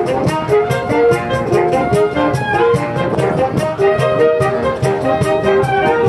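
A saxophone ensemble playing a Latin suite: several saxophones holding and moving between chord notes over a cajón beating a steady rhythm of about four strokes a second.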